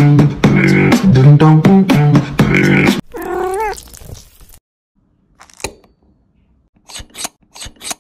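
Loud rhythmic vocal music with a beat for about three seconds, then a short meow-like call that rises and falls. A few sharp clicks come in the last three seconds.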